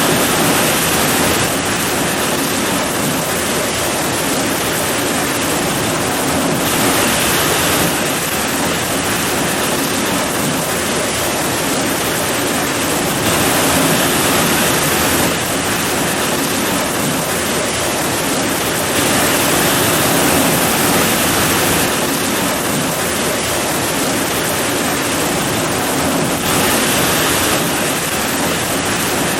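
Heavy rain pouring steadily, a dense even hiss that swells a little louder for a few seconds at a time.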